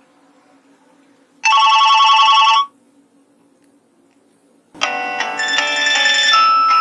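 Nokia 2865 mobile phone's loudspeaker playing ringtones: a rapidly pulsing tone lasting about a second, then after a pause of about two seconds a polyphonic ringtone melody starts.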